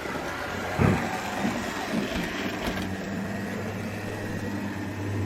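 HO-scale model diesel locomotives running on the layout: a steady low electric hum, with a few short clicks and a brief louder sound about a second in.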